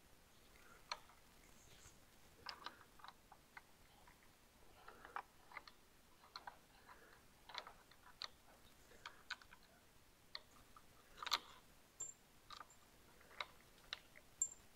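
Near silence broken by faint, scattered small clicks and taps from a hand tool and plastic parts as a motorcycle's handlebar controls are taken apart, with one sharper click about 11 seconds in.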